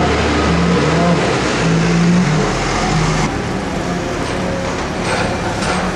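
Diesel engine of farm machinery running, its revs stepping up and down as a telehandler hoists a big square straw bale. The engine note is accompanied by a steady mechanical noise.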